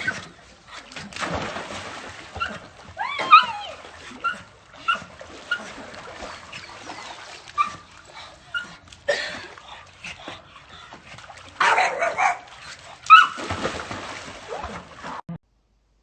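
A dog whining and yipping in many short high calls, with one longer whine that rises and falls about three seconds in, and bursts of noise between them. The sound cuts off abruptly near the end.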